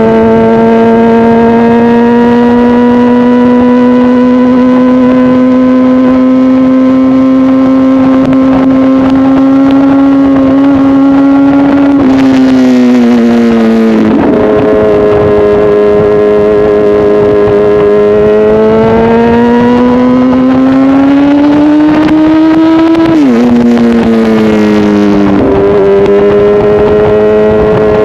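Honda CBR1000RR inline-four engine running loud through an SC-Project aftermarket exhaust, under way: the note climbs slowly in pitch and drops sharply three times, about twelve, twenty-three and twenty-five seconds in.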